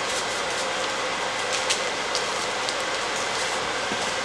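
Montreal steak seasoning shaken from its container onto raw T-bone steaks: a few light ticks and rattles of the granules over a steady background hiss.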